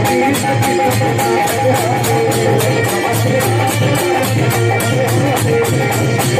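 Instrumental passage of a Holi-tune kirtan played by a small folk band: held melody notes over a steady, fast percussion beat, with no singing.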